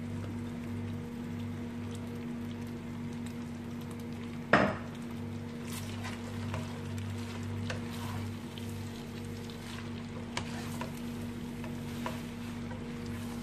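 Spaghetti sizzling in a frying pan as it is tossed with tongs, with light clicks of the tongs against the pan and one sharp clack about four and a half seconds in, over a steady low hum.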